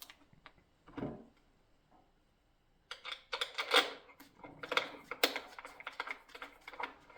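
A vintage Stoewer portable typewriter being handled: a knock about a second in, then from about three seconds a run of sharp metallic clicks, rattles and knocks as the machine and its loose parts are moved about.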